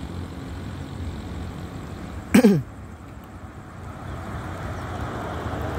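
A single loud cough close to the microphone, a little over two seconds in, over a steady low rumble of passing road traffic.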